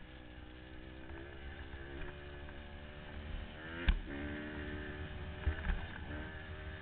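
Honda CRF150R dirt bike's single-cylinder four-stroke engine running under way, its pitch rising and falling with the throttle, over wind rumble on the microphone. A sharp thump about four seconds in and two smaller knocks a little before six seconds.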